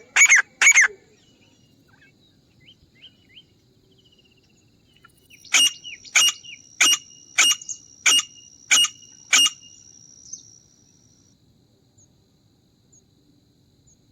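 Grey francolin calling: a couple of loud, harsh notes right at the start, then a pause with faint chirps. Midway a series of seven loud notes comes about 0.6 s apart, the repeated call used to lure francolins when hunting.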